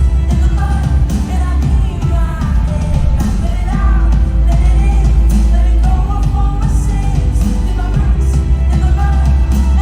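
A woman singing a pop song live, her voice wavering with vibrato over a backing track with a strong deep bass.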